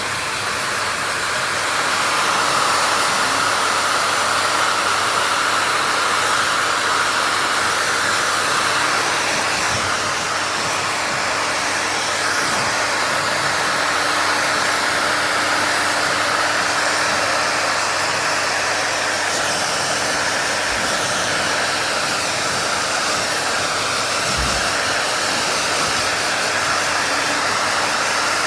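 YA-MAN Veda Bright hair dryer blowing steadily while drying hair: an even rush of air over a faint motor hum, a little louder from about two seconds in.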